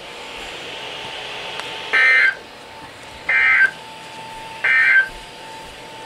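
Weather radio receiver playing the Emergency Alert System end-of-message code: three short, screechy digital data bursts about 1.3 seconds apart, over faint broadcast hiss and a steady low hum. The bursts mark the end of the severe thunderstorm warning.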